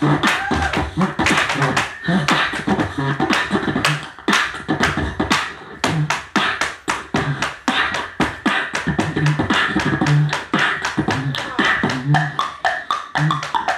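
Beatboxing: a fast, steady rhythm of vocal kick-drum thumps laced with sharp clicks and snare sounds.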